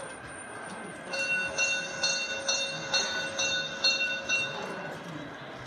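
A bell on a model railway layout ringing in even strokes, about two a second, with a steady ring between them. It starts about a second in and stops after roughly four seconds.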